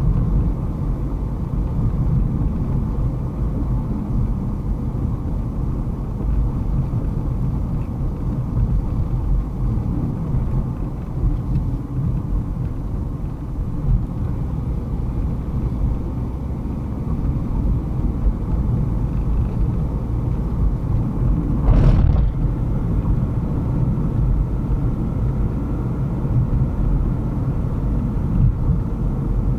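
Car driving along a paved road, heard from inside the car: a steady low rumble of tyres and engine. A brief louder rush cuts through about three-quarters of the way in.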